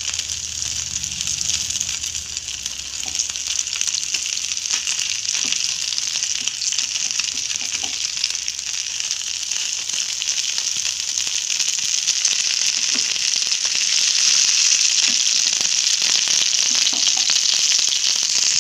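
Masala-coated Indian mackerel frying in coconut oil on a flat pan: a steady sizzle that grows louder in the second half.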